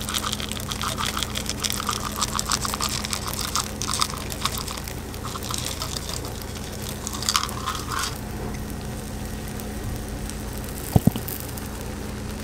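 Chocolate chips scattered from a cup, pattering onto a cast-iron bubble waffle iron full of batter for about eight seconds, followed by a quieter stretch as batter is poured over them. A steady low hum runs underneath, and there are two sharp clicks near the end.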